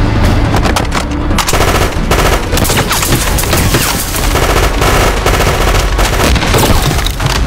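Heavy machine-gun fire in a battle scene, dense bursts of many shots a second with other gunfire mixed in.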